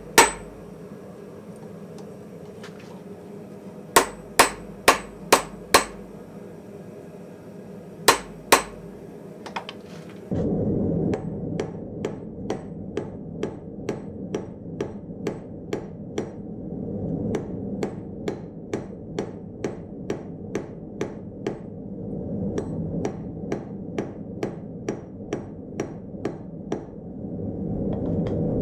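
Hammer blows forging hot steel on a small anvil: short groups of sharp, ringing strikes, then from about ten seconds in a steady run of about two blows a second over a constant roar, most likely the lit forge.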